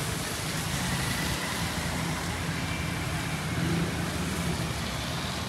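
Steady noise of rain and road traffic on a wet street, with cars and a motorbike passing and a low rumble underneath.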